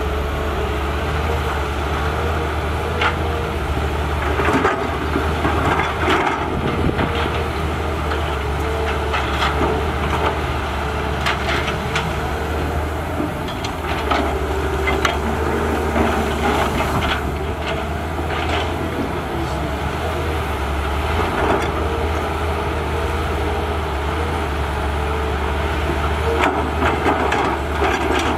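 Volvo EC210BLC excavator's diesel engine running steadily under working load, with a steady whine, while knocks and cracks of digging come at irregular intervals.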